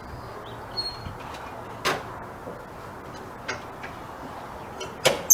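Knocks and clunks of wooden cart parts and tools being handled: single knocks about two seconds and three and a half seconds in, then a louder clunk near the end.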